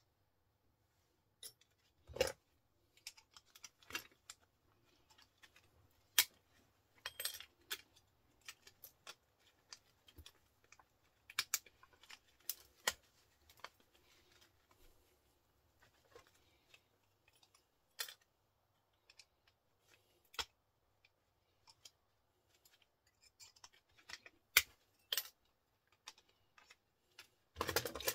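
Scattered sharp clicks and snaps of pliers biting into and prying apart small plastic and metal electrical fittings, with a short burst of clattering parts near the end.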